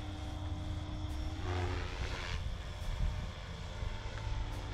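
SAB Goblin 380 electric RC helicopter flying at a distance: a steady hum of its rotors and motor, with a brief swell in the noise about a second and a half in.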